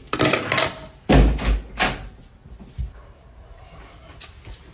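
A few sudden knocks and bangs, the loudest a deep thud about a second in, followed by smaller knocks.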